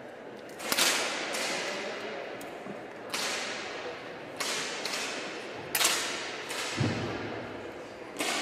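10 m air pistol shots from several shooters firing in turn: about seven sharp cracks at irregular intervals, each echoing through the hall. A low thump sounds near the end.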